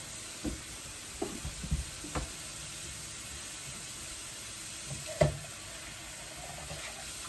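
Water running into a kitchen sink as dishes are washed, with a few short clinks and knocks of dishes and utensils being handled; the loudest knock comes about five seconds in.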